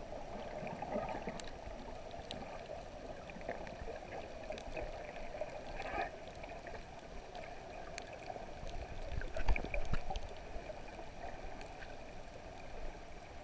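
Underwater ambience picked up by a submerged camera: a steady wash of water noise with scattered faint clicks, and a louder low rumble about nine and a half seconds in.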